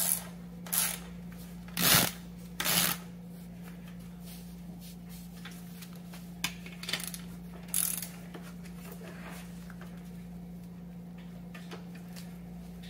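Socket ratchet working the 18 mm axle nuts onto an electric scooter's rear hub motor: three short ratcheting bursts in the first three seconds, then a few lighter metal clicks and taps between about six and eight seconds in, over a steady low hum.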